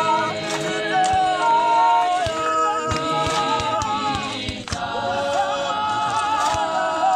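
Small gospel choir singing a cappella in harmony, with long held notes. A few short, sharp knocks and scrapes, shovels working the stony soil, break in now and then.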